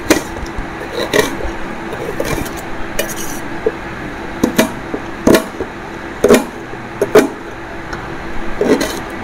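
Small kitchen knife cutting an onion against a steel plate: irregular knocks and scrapes of the blade on metal, some in quick pairs.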